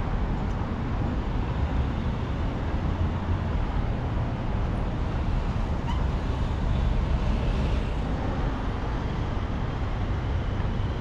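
Steady road traffic noise, a continuous low rumble of passing vehicles with no distinct events.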